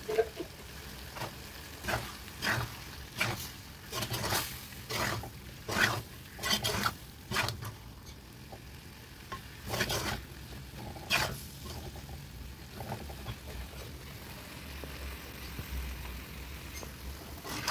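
A steel spoon stirring and scraping beef roast in a clay pot, with a run of short scrapes for the first eleven seconds or so and then quieter, while the meat sizzles as it fries.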